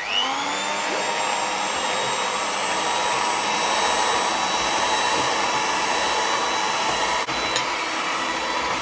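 Electric hand mixer switched on, spinning up to speed and then running with a steady motor whine as its beaters cream butter and brown sugar in a plastic bowl.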